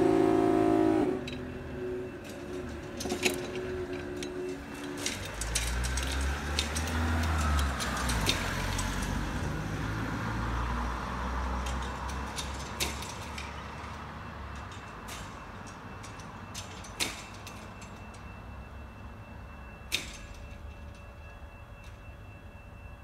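A loud pitched tone cuts off about a second in. Then road vehicles move past a level crossing as its barriers rise, with a deep engine rumble strongest in the middle and a few sharp clicks.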